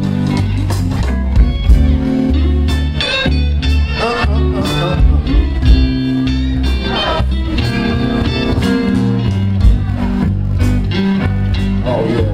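Live blues band playing an instrumental break: an electric guitar lead with bending notes over bass and drums.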